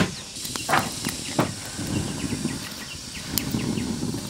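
A hammer striking wood, three blows in the first second and a half, the tail end of a run of steady hammering. After them come a few low, rough sounds with faint ticking.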